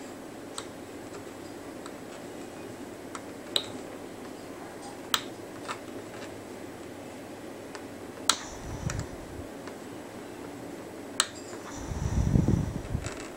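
Small sharp clicks of a loom hook and rubber bands against the clear plastic pegs of a rubber-band loom, about six of them spread out over a steady background hiss. A brief low rumble comes about two thirds of the way in, and a louder one near the end.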